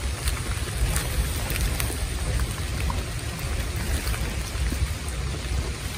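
Fast-flowing river water rushing steadily, the river swollen after rain, with a deep rumble.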